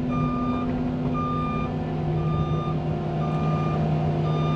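Cat 310 mini excavator's travel alarm beeping steadily, about one half-second beep a second, over the steady running of its diesel engine as the machine tracks along.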